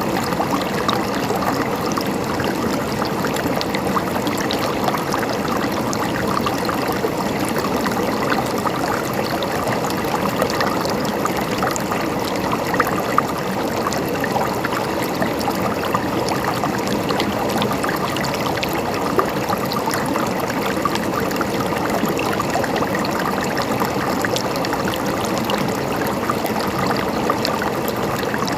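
Running water trickling and gurgling steadily, full of small splashes and drips.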